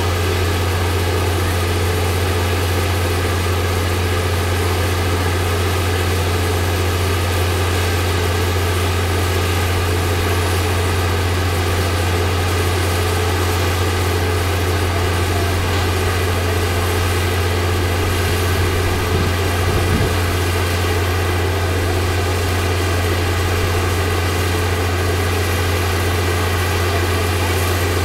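A mobile crane's diesel engine running steadily at a constant speed, a low, even drone that does not change.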